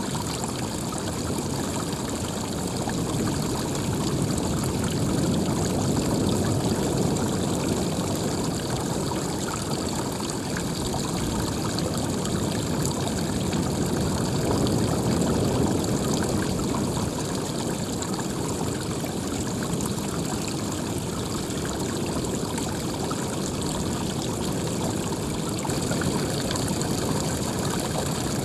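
Continuous rush of running water, swelling and easing gently in loudness now and then.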